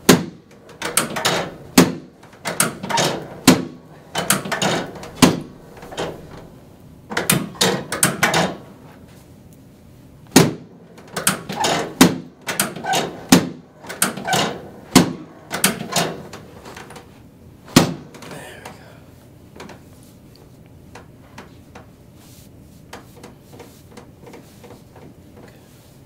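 Chiropractic adjustment on the treatment table: a series of sharp thuds and knocks, many in quick pairs, from thrusts into the patient's back. They stop about two-thirds of the way through, leaving only faint scattered ticks.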